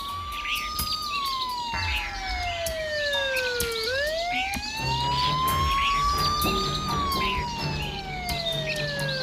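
Police vehicle siren on a slow wail, its pitch sliding up and then down about every six seconds, with a vehicle engine humming in from about five seconds in. Birds chirp faintly behind it.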